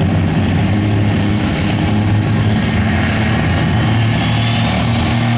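Small garden pulling tractor's engine idling at a steady, unchanging pitch.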